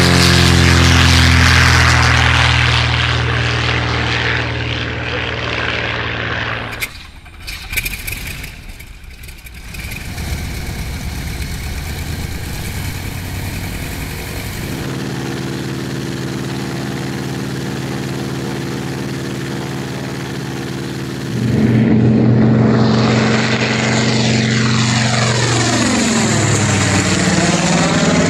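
Hispano-Suiza 12Y V12 aero engine at full power on a fighter's take-off run. After a short drop in level it gives way to a Zero fighter's 14-cylinder radial running steadily on the ground. About 21 s in, a Zero's radial engine gets suddenly louder as the plane flies past overhead, its tone sweeping down.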